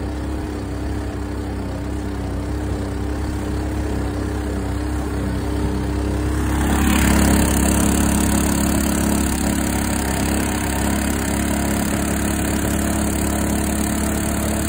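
Clone 212cc single-cylinder four-stroke engine on a long-tail mud motor running steadily, pushing the boat under way. About halfway through it gets louder and harsher.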